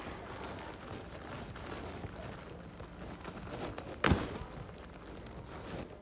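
Rustling and rubbing of clothing against a handheld phone's microphone, with one loud knock about four seconds in.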